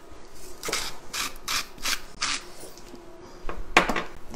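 Pepper mill grinding in a series of short twists, with a louder one near the end.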